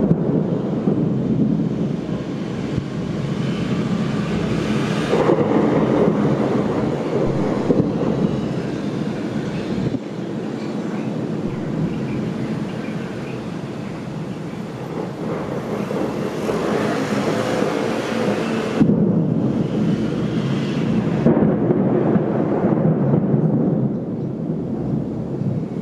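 Rolling thunder: one long, continuous rumble that rises and falls in several waves, recorded through a Panasonic Lumix DMC-G7 camera's audio.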